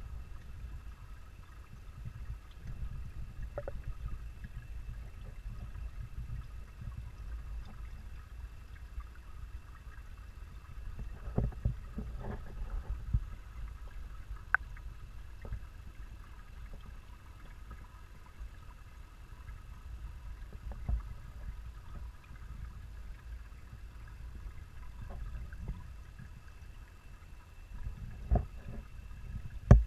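Muffled underwater sound of a garden pond picked up through a GoPro's waterproof housing: a steady low rumble with a faint steady hum above it. A few short soft knocks stand out, a cluster about eleven to twelve seconds in and more near the end.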